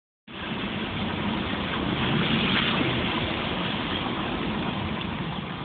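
Steady car running noise heard from inside the cabin: engine hum under the hiss of tyres on a wet, slushy road.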